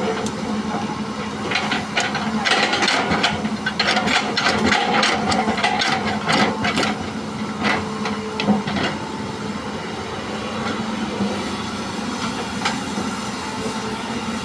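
A Hitachi EX200 excavator loading soil into a dump truck: diesel engine running steadily, with a run of knocks and rattles from about a second and a half in to about nine seconds in as the load goes in.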